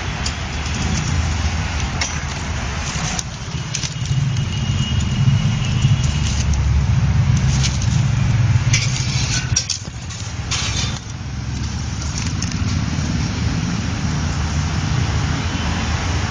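Steady low rumble of street traffic, with a few sharp clicks scattered through it.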